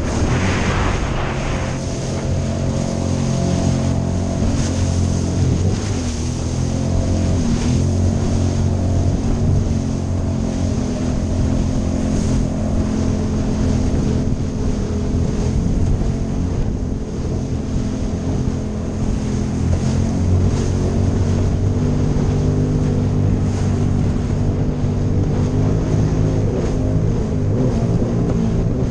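Sea-Doo Spark personal watercraft's three-cylinder Rotax engine and jet pump running steadily at cruising speed. Water spray hisses over the hull in the first second or so, with wind on the microphone.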